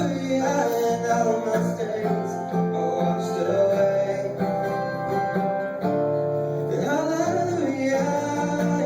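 Acoustic guitar strumming a slow worship song, with a man's voice singing along and a sliding vocal line about seven seconds in.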